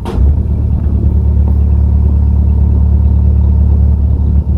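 Narrowboat's diesel engine running under throttle: a loud, steady low rumble that comes in suddenly and drops back near the end.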